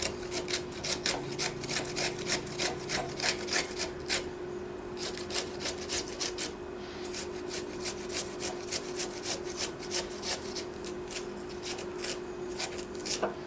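Peeled fresh ginger root being grated on a hand grater: quick rasping strokes, about three to four a second, with a couple of short pauses.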